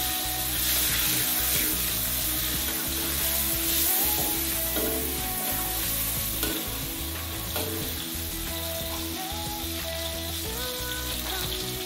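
Chopped shallots, garlic and tomato frying in hot oil in a metal wok, a steady sizzle, with a metal spatula stirring and scraping the pan a few times. Faint background music underneath.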